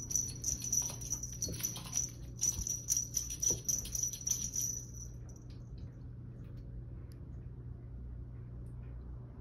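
Small metal bell jingling in quick, uneven shakes for about five seconds, then stopping. A low steady hum runs underneath.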